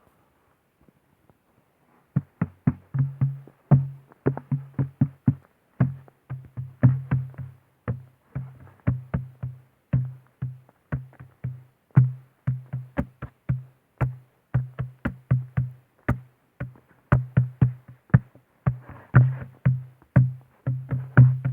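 Percussive music starting about two seconds in: sharp clicking hits over a low bass note, in a busy rhythm.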